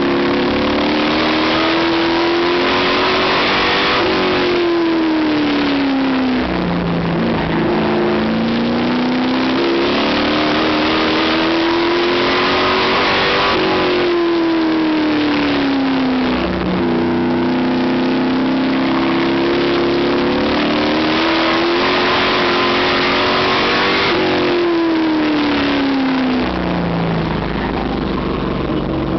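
A 350-horsepower stock car's engine at racing speed, heard from inside the cockpit. Its pitch climbs steadily, then drops as the driver lifts, and this happens three times: on each lap it pulls down the straight and backs off for the turns.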